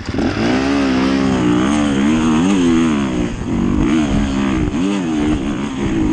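Dirt bike engine revving up and down under short throttle blips, its pitch rising and falling over and over.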